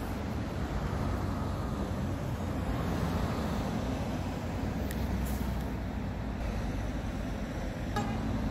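Steady low rumble of a motorhome driving past, engine running.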